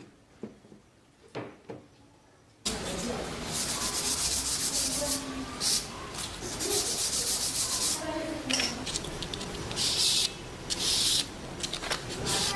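Abrasive rubbing on wood, like hand sanding, in quick irregular back-and-forth strokes. It starts abruptly about two and a half seconds in, after a few faint clicks.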